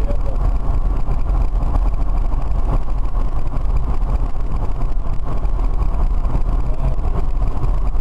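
Steady low rumble of road and wind noise inside the cabin of an electric-converted BMW driving at motorway speed.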